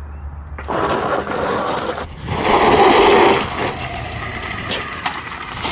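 Gravel crunching and scraping under the spinning wheels of an electric hub-motor-driven dirt bike as it digs in and rides off. The noise is loudest about two to three seconds in, while the motor itself is near silent.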